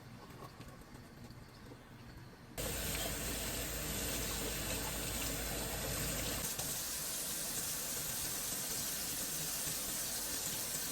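Kitchen tap running into the sink during dishwashing; the flow comes on much stronger about two and a half seconds in and then runs steadily.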